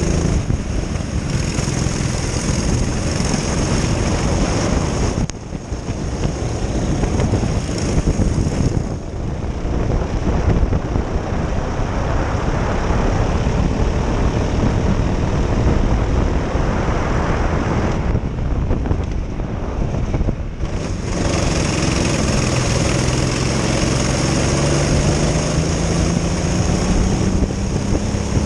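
Twin Honda four-stroke engines of a Prokart racing kart at race speed, heard onboard. The revs drop as the driver lifts for corners about five seconds in, again around nine seconds and around eighteen to twenty seconds, then climb steadily near the end as the kart accelerates down a straight.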